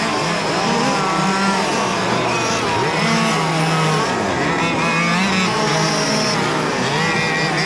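Several large-scale radio-controlled F1 cars racing, with a number of engines at different pitches rising and falling together as the cars accelerate, brake and pass.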